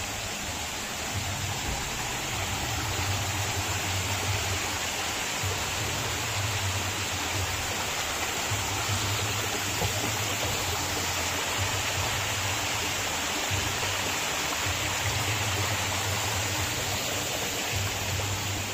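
Waterfall splashing steadily, an even rush of falling water, with a low rumble that comes and goes.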